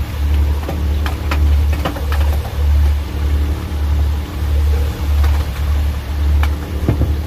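A fishing boat's engine idling with a steady low throb, with a few sharp knocks and clatters over it.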